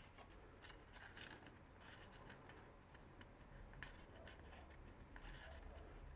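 Faint rustling and scattered light ticks of thin card being folded and pressed between fingers, over quiet room tone.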